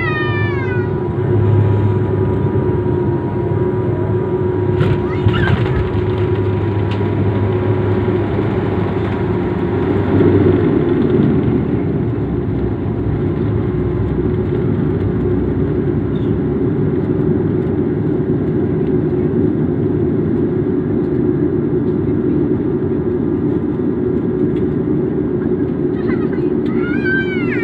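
Steady engine and air noise inside an airliner's cabin, a continuous hum with a faint steady tone that stops about ten seconds in.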